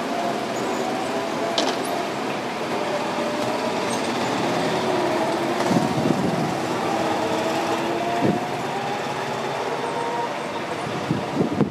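Several go-kart engines running on the track, their pitch rising and falling as the karts accelerate, brake and pass, with a few short thumps.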